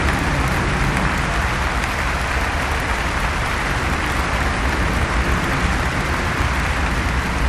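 Crowd applauding, a steady rushing clatter of many hands, over a continuous low rumble.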